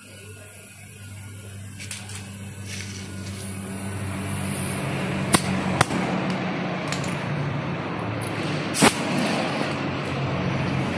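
Air hissing out of a car tyre through its open valve stem, the valve core taken out to let the tyre down before the leaky valve is replaced; the hiss builds over the first few seconds and then holds steady. A few sharp metallic clicks, the loudest near the end.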